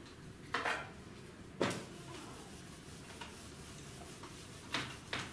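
A whiteboard eraser wiping the board in a few brief rubbing strokes. The second stroke, about one and a half seconds in, starts sharply like a knock.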